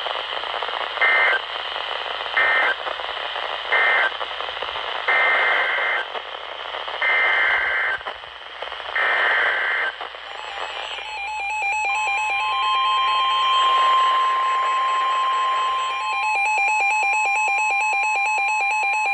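Emergency Alert System data bursts between two weather warnings: three short buzzing bursts (the end-of-message code), then three longer bursts (the header of the next alert). About 12 seconds in, a long steady weather radio warning alarm tone starts under a rapid pulsing beep.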